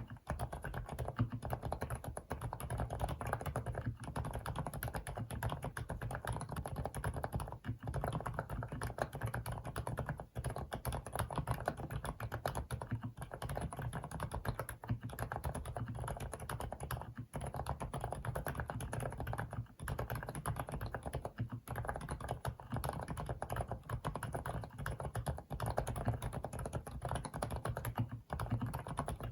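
Continuous fast typing on an FL-ESPORTS CMK75 mechanical keyboard with Kailh silent cream linear switches, the keystrokes damped by the silent switches, with short breaks every two to three seconds.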